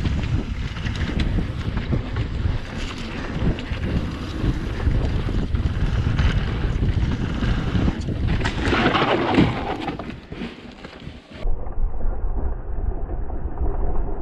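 Wind buffeting an action camera's microphone during a fast mountain-bike descent, with knocks and rattles from the bike and tyres over rough trail. About three-quarters of the way through the sound turns duller and more muffled.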